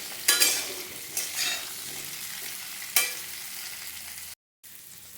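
Potato and raw papaya pieces sizzling in hot oil while being stirred, with a few scraping strokes against the pan. The sound drops out briefly near the end, then the sizzling goes on more quietly.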